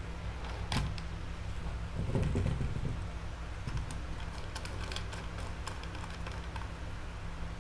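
Small plastic clicks and creaks from handling a flexible-leg gorilla tripod and its phone clamp: one click about a second in, a low thump and rustle about two seconds in, then a run of light clicks between about four and six and a half seconds in. A steady low hum runs underneath.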